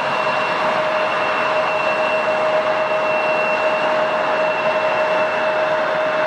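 General Electric CF34 turbofans of an Embraer E-Jet airliner taxiing at low thrust. The jet whine is steady: two held tones, one middling and one high, over a broad hiss.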